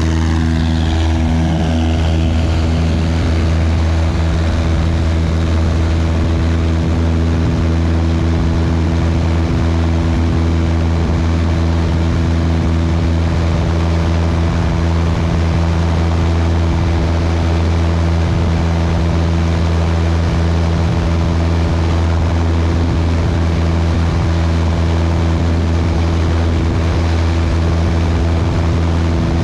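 Cessna 172's piston engine and propeller at full takeoff power, a loud, steady drone through the end of the takeoff roll, liftoff and climb-out.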